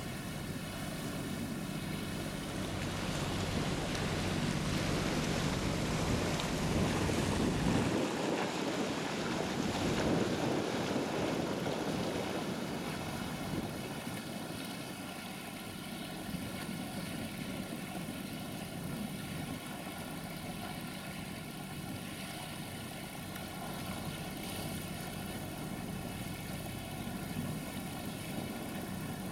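A boat engine running steadily at an even pitch, with a louder rushing noise for several seconds near the start.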